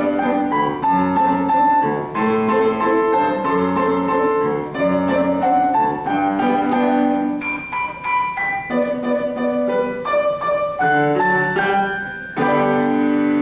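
Grand piano played four hands by two players: a duet of moving melody over chords. A loud chord is struck and held near the end.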